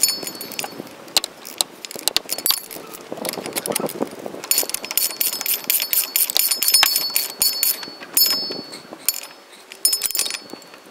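Socket ratchet clicking in quick runs, with metal tools clinking, as the 18 mm bolts and nuts of a new driveshaft flex coupling are done up against a spanner.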